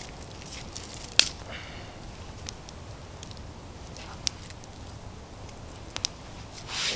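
Small wood campfire burning, with a few sharp isolated pops, the loudest about a second in, over a faint steady hiss. A brief rustle of sticks being handled comes near the end.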